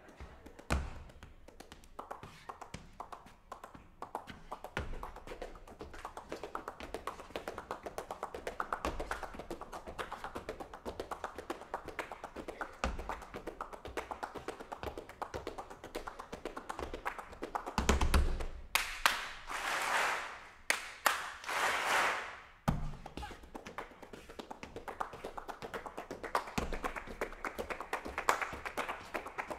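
Rapid, rhythmic hand clapping in quick patterns, with a few louder swells of noise about two-thirds of the way in.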